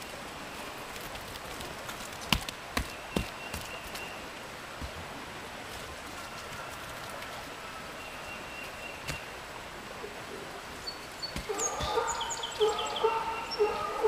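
Farm fowl calling: a run of rapid, pulsing calls starts about eleven seconds in, with high chirps over them. Earlier, a few sharp thumps sound about two to three seconds in.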